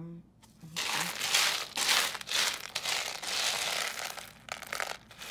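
Dried beans rattling and shifting in a plastic tub as a gloved hand digs through them, a run of uneven rustling scoops from about a second in until near the end.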